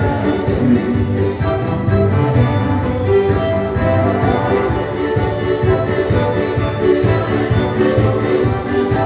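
Dance-band music with a steady beat under a sustained instrumental melody, without singing.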